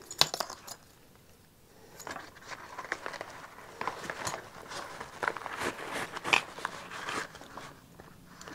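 Handling noise: a few sharp clicks at the start, then, after a short lull, rustling and small clicks as gear is pressed into the elastic loops of a nylon organizer pouch.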